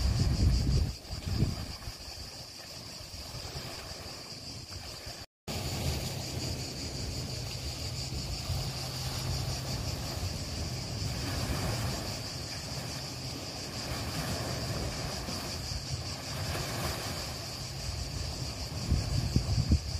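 Wind buffeting the microphone as a low, uneven rumble, strongest at the start and near the end, over a steady high-pitched buzz. The sound drops out completely for a moment about five seconds in.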